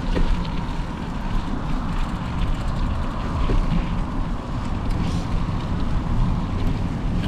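Steady wind rumble on the microphone and tyre noise from a bicycle being ridden, with a few faint rattling ticks.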